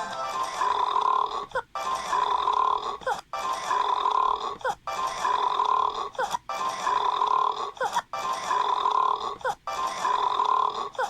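A short clip of a cartoon dragon's burp over background music, looped about seven times in a row. Each repeat lasts about a second and a half and breaks off sharply before the next begins.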